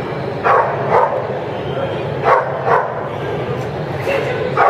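Long-haired German Shepherd barking: short sharp barks, mostly in pairs about half a second apart. The barking is aimed at a helper who is attacking its handler in a protection exercise. A hall crowd murmurs underneath.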